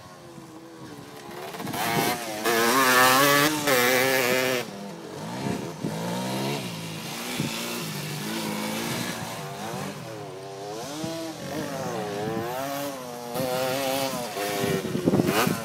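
Off-road motorcycle engines, a Yamaha WR250F among them, revving up and down as the bikes ride past, the pitch rising and falling again and again. Loudest about two to four seconds in.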